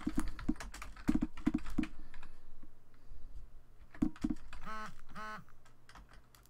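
Typing on a computer keyboard: a quick run of keystrokes in the first two seconds, then a few more keystrokes about four seconds in.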